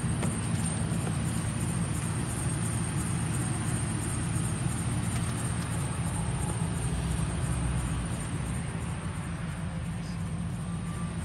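The 5.4-litre V8 of a 2004 Ford F-150 idling steadily, a low even hum that drops a little in level about eight seconds in.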